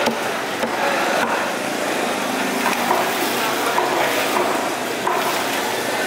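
A large knife slicing and skinning parrotfish fillets on a wooden chopping block, the blade scraping through flesh and against the wood, with a few sharp knocks of the blade on the block. Steady background noise underneath.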